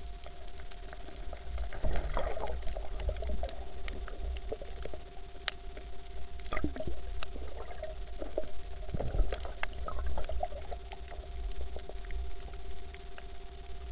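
Underwater sound picked up by a diving camera: water rumbling and crackling with scattered sharp clicks, three bursts of denser crackling about two, six and a half and nine seconds in, over two faint steady hums.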